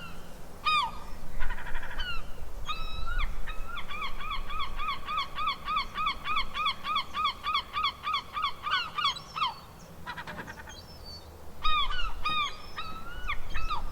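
Seagulls calling: a few separate yelping calls, then a long run of rapid repeated calls, about three or four a second for some six seconds, and scattered calls again near the end.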